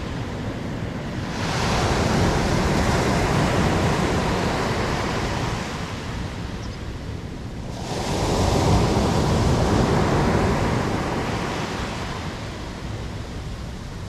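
Sea surf breaking on a beach of coarse dark sand and pebbles: two waves about six seconds apart, each rushing up the shore in a loud wash and then fading as it drains back.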